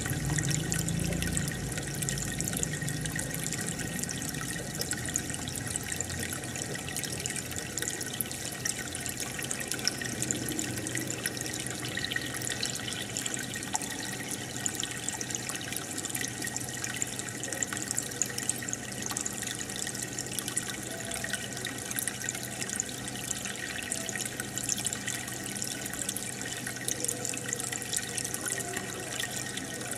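Aquarium air stone bubbling and filter water running, a steady fizzing with many tiny bubble pops over a low, steady hum from the pump.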